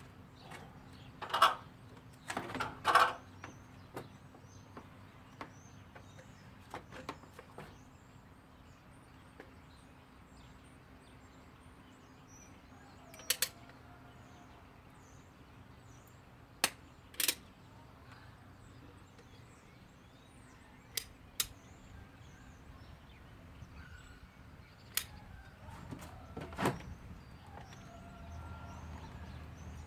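Scattered sharp clicks and knocks from a caulking gun being worked, a few seconds apart, with faint birds chirping in the background.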